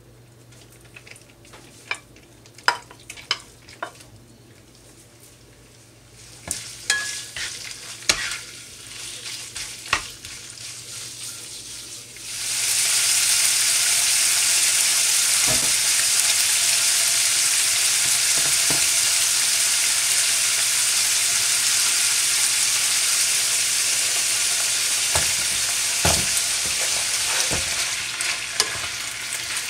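A few sharp clicks and knocks at first. Then, about twelve seconds in, a loud steady sizzle starts as sliced pork belly fries in butter in a non-stick wok. It is stir-fried with a wooden spatula that knocks against the pan now and then, with kimchi stirred in near the end.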